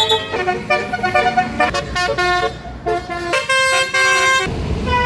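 Tour bus 'telolet' Basuri multi-tone air horn playing a melody in stepped notes. A bus engine rumble comes up near the end.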